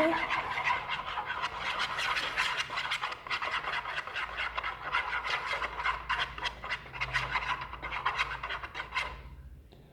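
A spoon stirring and scraping in a plastic pot, mixing paint into gel glue: a fast, continuous scratchy rubbing that fades out near the end.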